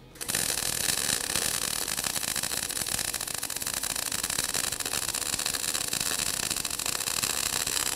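MIG welding arc running a bead along a T-joint in 3/16-inch cold-rolled steel plate: a steady, dense crackle that starts a fraction of a second in.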